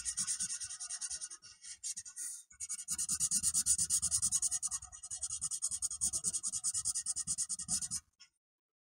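Felt-tip marker scratching on paper in quick back-and-forth colouring strokes, several a second. It pauses briefly about a second and a half in, picks up again near three seconds, and stops about a second before the end.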